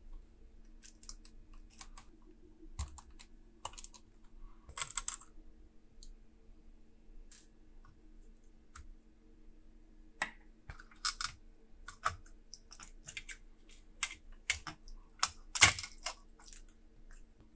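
Irregular small clicks and taps of hand tools and parts on a laptop's opened chassis and motherboard (tweezers and a small screwdriver on metal and plastic), with the loudest cluster of clicks near the end, over a faint steady hum.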